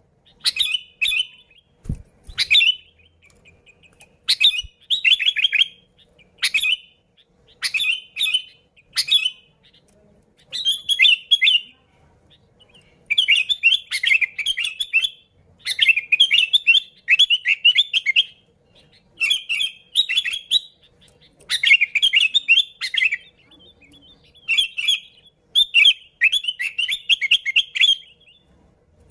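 Sooty-headed bulbul (kutilang) singing busily: short chattering phrases repeated about once a second, with brief pauses between runs.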